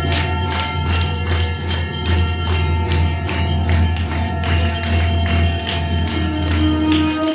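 Hindu devotional music with a steady beat of about three strikes a second and ringing bell-like tones over a low hum; it cuts off suddenly near the end.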